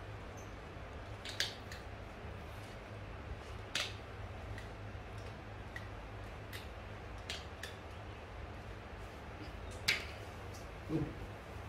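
Small hand nail clipper snapping shut, sharp clicks a few seconds apart, over a low steady hum; a short low-pitched sound near the end.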